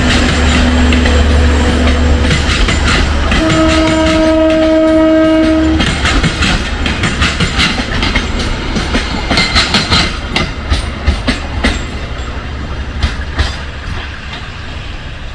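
Passenger train passing and pulling away: a heavy low rumble, then a train horn sounding one steady blast of about two seconds a few seconds in. After that the wheels clack irregularly over the rail joints, fading as the train recedes.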